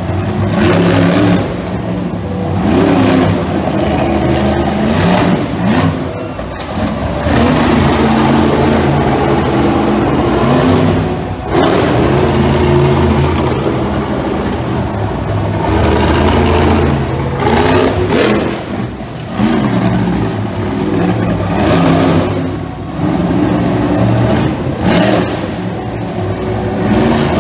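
Bigfoot monster truck's engine revving hard, its pitch rising and falling again and again, with brief drops near eleven and twenty-two seconds in.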